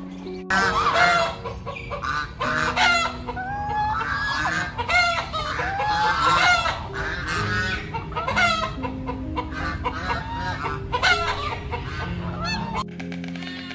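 Domestic geese and chickens calling over one another: honks, clucks and a rooster crowing. The calls start abruptly about half a second in and cut off just before the end, with soft background music underneath.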